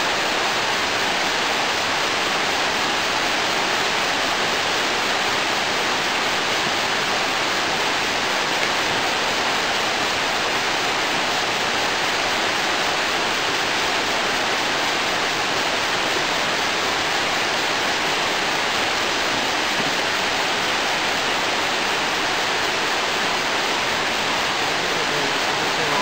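Steady, unbroken rush of a mountain river's flowing water, an even hiss with no pauses.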